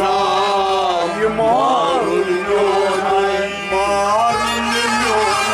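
A singer performing a Sufi devotional kalaam with instrumental accompaniment. The voice holds long notes and slides up and down in melismatic turns over a steady pulsing low rhythm.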